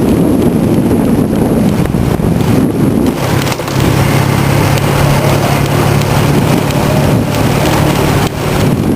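Waterfall pouring, a loud steady rush of water, with wind buffeting the microphone.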